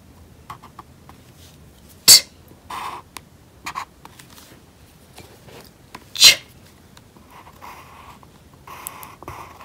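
Two short, sharp breathy bursts about two and six seconds in: the unvoiced letter sounds /t/ and /ch/ spoken on their own as the letters of 'itch' are written. In between, a felt-tip marker scratches faintly on paper.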